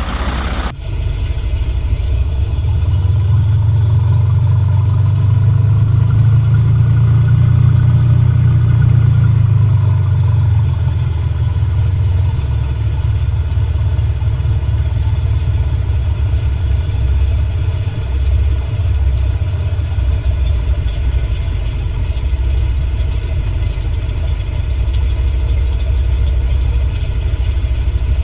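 Engine running with a steady low rumble. It swells from about three seconds in and eases back after about ten seconds, then holds steady.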